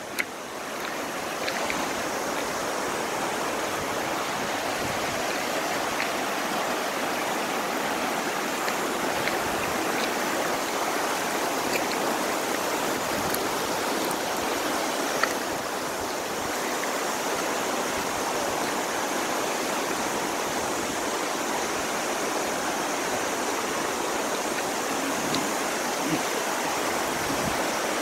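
Shallow mountain river rushing and splashing over rocks and riffles: a steady, even rush of water that swells in over the first second.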